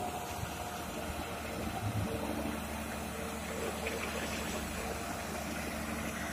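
Diesel engines of a Komatsu PC200-6 excavator and a dump truck running steadily at low revs, an even low hum.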